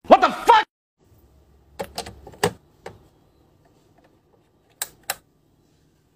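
A brief, loud shout by a man's voice, then about half a dozen sharp clicks spread over the next few seconds: a hand flipping the switches on an electrical power strip.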